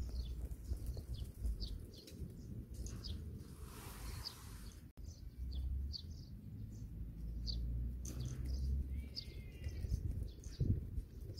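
Small birds chirping, short high chirps repeating several times a second, over a steady low rumble. A brief rustling hiss about four seconds in.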